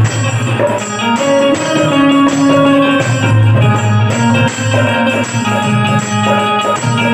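Indian banjo playing a melody of held, plucked notes over a low, pulsing accompaniment.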